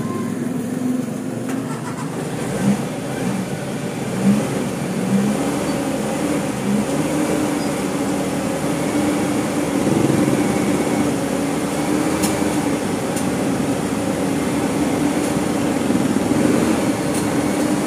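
A steady mechanical hum, like a running motor, with a few faint light clicks in the second half.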